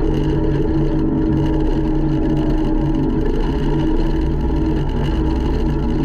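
Takeuchi TL150 track loader's diesel engine running steadily, heard from the operator's seat while the machine drives with a loaded bucket.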